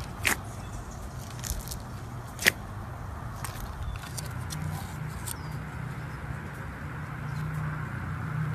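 Slime being handled, giving sharp crackling pops: two loud ones, near the start and about two and a half seconds in, with fainter ones between, over a steady low rumble.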